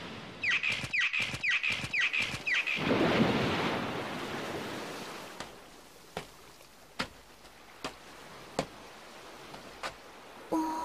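A quick run of sharp, bright strokes, then surf washing up onto a sand beach and drawing back. It is followed by light, sharp ticks spaced just under a second apart.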